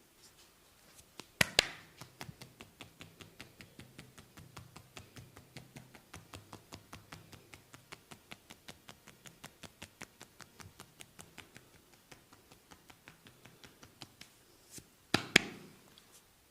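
Massage tapping: a rapid, even run of light strikes, about five a second, with two sharp, louder clacks just before it starts and two more as it ends.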